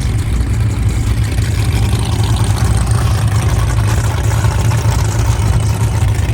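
Race car engine idling steadily with a loud, low rumble.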